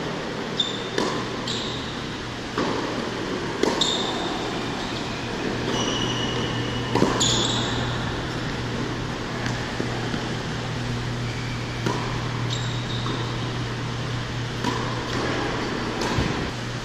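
Tennis rally on an indoor hard court: a tennis ball being struck by rackets and bouncing, in sharp single hits every second or two, with short high squeaks of tennis shoes on the court surface. A steady low hum runs underneath.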